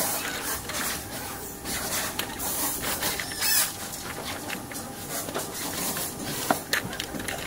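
Steel-framed folding wagon being opened and handled: the frame and fabric body rub and scrape, with scattered clicks from the folding joints and a sharp click near the end.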